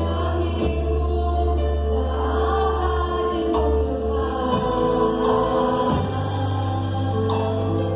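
Gospel music from a band, with voices singing over long held notes and a deep bass that shifts pitch twice.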